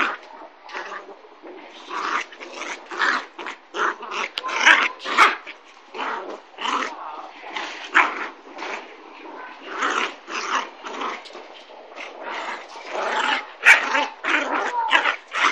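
Two puppies, a Kooikerhondje and a young black dog, growling and yipping while they play-fight, in short sounds that come again and again.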